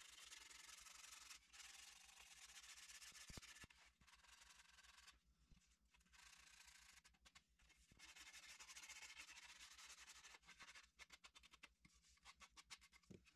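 Faint hand sanding: a sandpaper-faced hand sanding pad rubbing back and forth along the cut edge of a wooden slat, in runs of strokes with short pauses, quickening into short, rapid strokes near the end.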